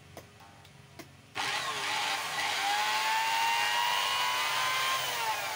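Planet Power EC4 marble and tile cutter's electric motor switched on with no load: after two light clicks it starts suddenly about a second and a half in, its whine rising as it spins up, then falls in pitch near the end as it is switched off and winds down. A test run after a new field coil was fitted.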